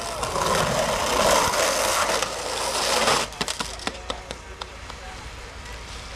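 A skateboard on rough concrete makes a gritty scrape for about three seconds that cuts off abruptly. A few light clacks from the board follow.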